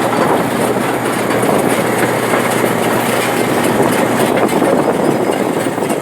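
Excavator's diesel engine running steadily, with a continuous clattering rattle over it.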